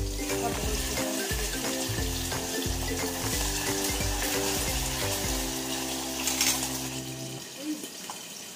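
Food sizzling in a pan on a gas hob while a utensil stirs a small saucepan, with a brief louder hiss about six seconds in. Background music with a bass line plays under it and drops out near the end.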